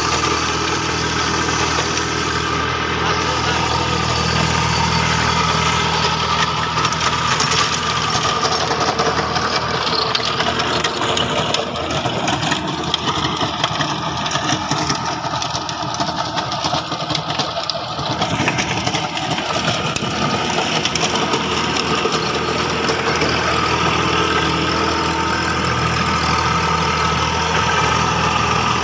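Diesel engine of a 27 hp Kubota compact tractor running steadily under load, driving a 4-foot Kubota KRX 101 rotavator through weedy soil.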